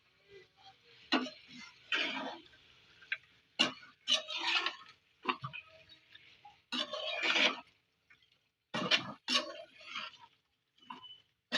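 A metal spoon or spatula clinking and scraping in a cooking pan in a string of short separate strokes, as fish pieces are turned over in the pan.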